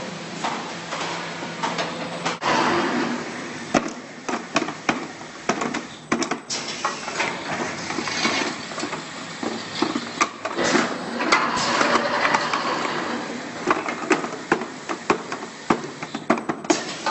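Cardboard tube cutting machine at work: a low motor hum stops about two seconds in, followed by many irregular knocks and clacks from the mechanism.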